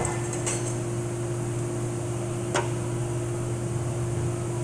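Steady electric motor hum, like a fan or air-conditioning unit, holding two even tones, with a single sharp click about two and a half seconds in.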